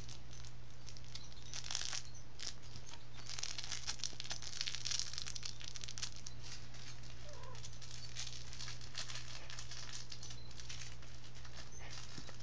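A cat rolling and wrestling with a fabric toy on carpet: irregular flurries of scratchy rustling and scuffing from paws, claws and fur against the toy and the carpet, busiest a few seconds in.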